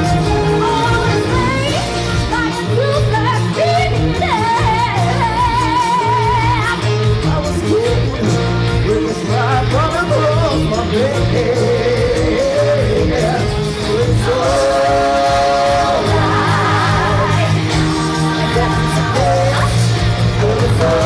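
Upbeat rock song with sung vocals over a full band accompaniment; the singing holds long wavering notes.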